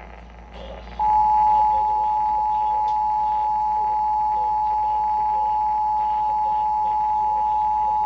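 Emergency Alert System two-tone attention signal, 853 and 960 Hz together, coming through an AM radio's speaker. It starts about a second in and holds steady and unchanging; it signals an emergency broadcast, here a flash flood warning.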